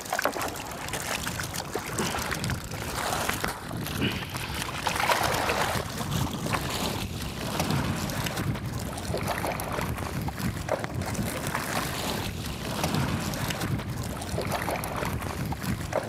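Water splashing and streaming off a fish-filled net as it is hauled out of the sea over the side of a small wooden boat, with irregular sloshes against the hull. Wind buffets the microphone.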